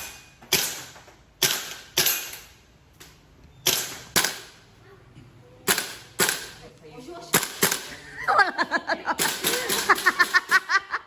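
Gas-powered airsoft gun firing single shots, often two in quick succession about half a second apart, each a sharp crack. A faster string of cracks follows near the end, mixed with voices.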